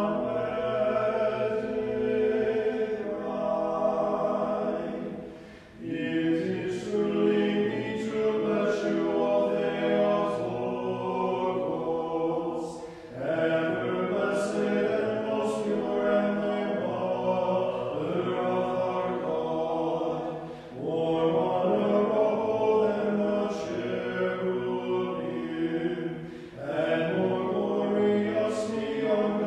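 Orthodox church choir singing a hymn a cappella, in long held phrases with short breaks between them.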